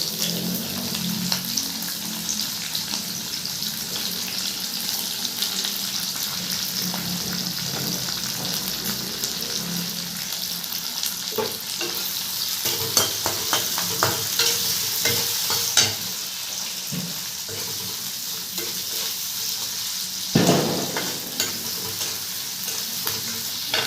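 Onions sizzling as they fry in hot oil in a pan, with a spatula stirring and scraping now and then and a single knock a little past the twenty-second mark.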